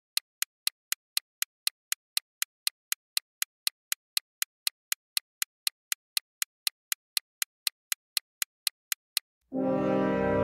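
Clock-ticking countdown sound effect: sharp, even ticks, about four a second. Near the end the ticking stops and music with low sustained notes begins.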